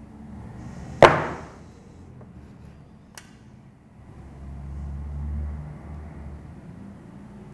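A single sharp knock of a small box being set down on a desk about a second in, then a faint click near three seconds and a low rumble that swells and fades a little later.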